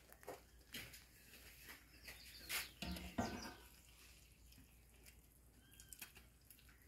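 Faint, intermittent scraping and knocking of a wooden spoon in an aluminium pan as thick papaya sweet is stirred and scooped out. A brief louder sound comes about three seconds in.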